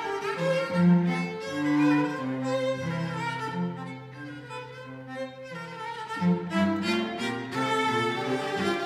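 Violin and cello playing together. The cello holds a long low note under the violin's line, and the music softens in the middle before growing louder again.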